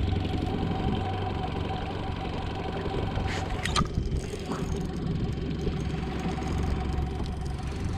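Boat motor running steadily at low speed, a constant hum under the fishing. A few sharp clicks come about three to four seconds in.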